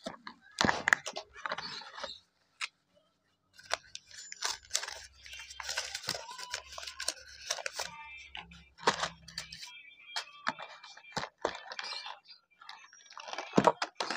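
Tissue paper and plastic packaging crinkling and rustling as hands dig through a plastic box of action-figure parts, with clicks and knocks of hard plastic pieces. There is a short pause a little after two seconds.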